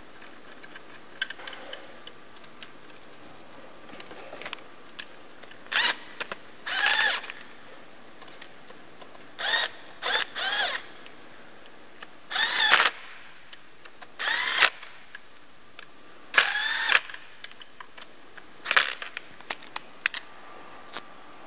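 Small electric power tool running the oil cooler housing's fasteners down, in about nine short bursts of under a second each, the motor's pitch rising and falling in every burst.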